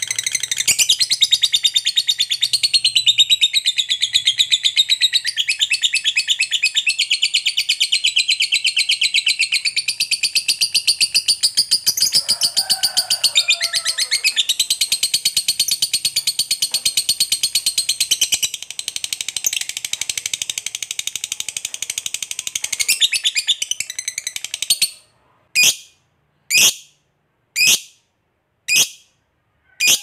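Lovebird giving 'ngekek panjang', a long unbroken chattering trill: a very fast, high-pitched run of notes held for about 25 seconds. It then breaks off into five short sharp calls about a second apart.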